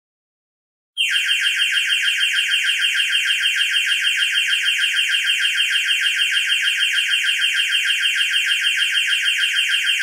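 Electronic timer alarm going off about a second in, buzzing in rapid, even pulses, about five a second: the countdown has reached zero.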